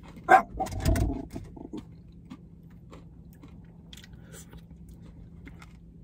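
People eating ice cream with plastic spoons: a sharp click about a third of a second in and a short vocal sound around a second in, then faint chewing and small spoon clicks against the cup.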